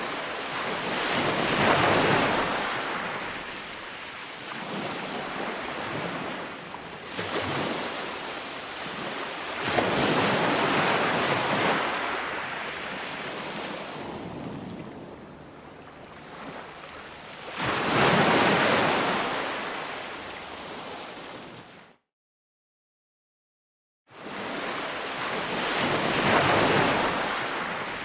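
Ocean surf: waves breaking and washing back in slow surges about every eight seconds. Near the end the sound cuts out suddenly to complete silence for about two seconds, then the surf resumes.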